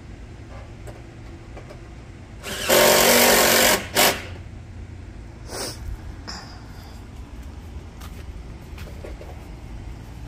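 Power drill running for about a second, then a short second burst, typical of a screw being driven home while a gutter is fastened to the eaves.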